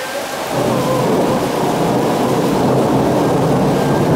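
Thunder rolling in about half a second in as a long, steady low rumble over heavy summer rain.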